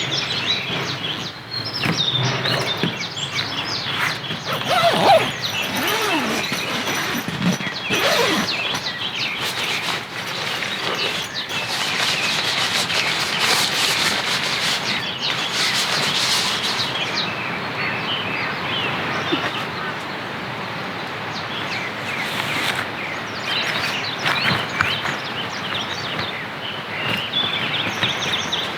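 Birds chirping over a steady wash of outdoor noise, with the chirping busiest in the first half.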